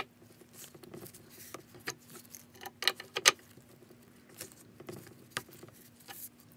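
Metal wrench clicking and clinking on a nut and bolt as it is turned on a steel frame: a string of irregular sharp clicks, the loudest a close pair about three seconds in.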